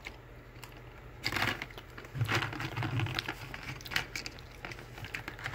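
Open cardboard Junior Mints box being handled and turned over, giving irregular rustling, crinkling and small clicks.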